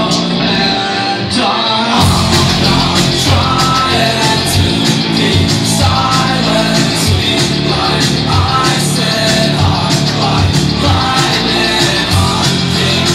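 Live rock band playing loud, with electric guitars and a singer; the drums and bass come in fully about two seconds in and keep a steady beat.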